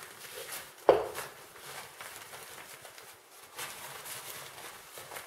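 Rustling of a drawstring tripod carry bag being handled and opened, with one sharp knock about a second in.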